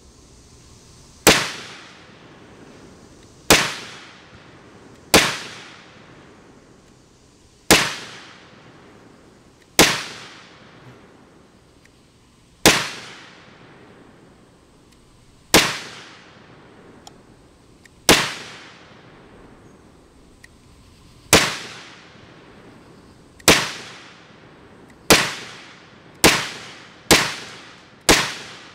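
Handgun shots, about fourteen single rounds, each with a short fading echo. They are spaced two to three seconds apart at first and quicken to about one a second near the end.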